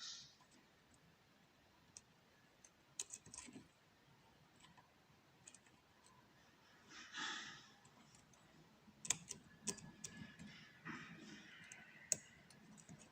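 Faint scattered clicks and light scraping of a hook pick working the pins inside a custom-pinned pin-tumbler challenge lock, held under tension with a pry-bar tension wrench. The sharpest clicks come about nine and twelve seconds in, and a short soft rush of noise falls about seven seconds in.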